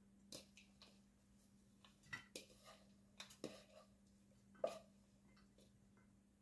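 Faint soft taps and rustles of dry bread and biscuit cubes tumbling from a bowl into a baking dish and being pushed in by hand, with one slightly louder knock about four and a half seconds in.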